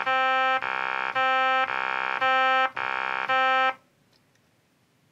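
Mono sawtooth synth patch from FL Studio's MiniSynth, played from a MIDI keyboard into a talk box. It alternates between a lower and a higher note about every half second, jumping instantly from one to the next with zero slide time (no portamento), then stops.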